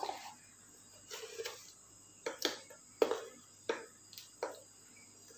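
A series of light knocks and clinks, about eight spread irregularly, from kitchen utensils and containers being handled.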